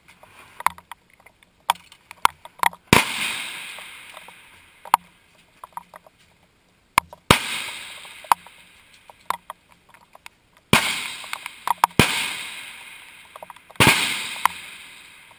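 Five rifle shots on a shooting range, each a sharp crack followed by a long echoing tail. The first three are several seconds apart and the last three come quicker. Small clicks and knocks sound between the shots.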